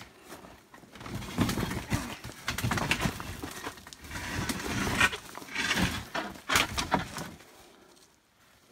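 A wooden arch frame being dragged out from under a dry stone bridge: wood scraping and grinding against stone and ground, with several sharp knocks in the second half as the frame comes free.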